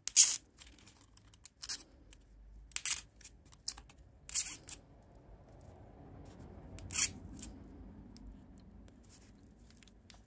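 Pins pushed through paper strips into a foam pinning board, with fingers pressing and sliding on the paper: a series of short scratchy crackles and faint rubbing.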